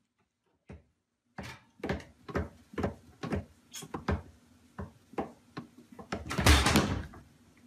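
Knocks and bumps on a wooden kitchen cabinet, a string of short sharp taps with one louder, longer bump near the end.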